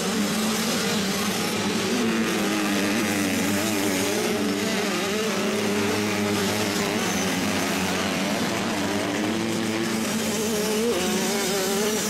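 Motocross dirt bikes running on the track, their engines revving up and down as the riders work the throttle, the pitch rising and falling.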